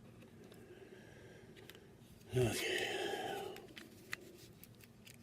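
A drawn-out, breathy spoken "okay" about halfway through, over low room tone with a few faint, scattered clicks from handling things on a desk.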